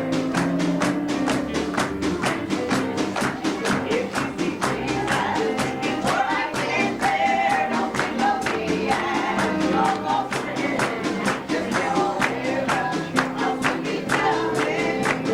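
Live gospel band playing a song: guitar, bass and piano with a steady, even strummed beat, and a singing voice carrying the melody.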